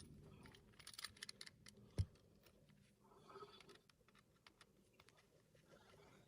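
Faint, scattered clicks and taps of small metal lock hardware being handled, with one sharper knock about two seconds in, then near silence.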